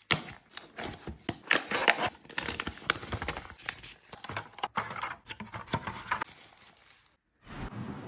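Hands handling a taped cardboard box and paper packing: rustling, crinkling and scraping of cardboard and paper, with many small clicks and taps. The sound cuts out briefly about seven seconds in.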